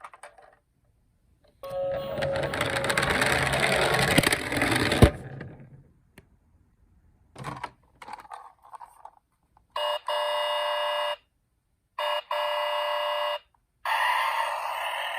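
A toy minicar rolling down a slope with a rattling rumble for a few seconds, ending in a sharp knock. Later the toy's electronic siren gives two steady tones about a second and a half each, and another siren sound starts near the end.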